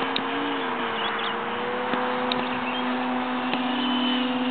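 R/C scale-model Dyke Delta airplane taxiing on grass, its motor and propeller running as a steady drone that rises slightly in pitch twice.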